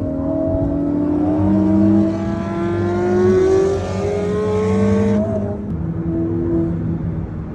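Ferrari F40's twin-turbo V8 accelerating hard, heard from a car driving alongside. Its pitch climbs steadily for about five seconds, then drops abruptly as the revs fall away.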